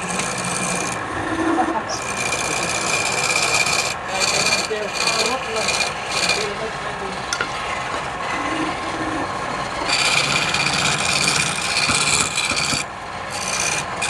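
Wood lathe running while a turning tool scrapes and cuts the spinning wood, with the rasping of the cut coming and going in stretches over a steady motor hum.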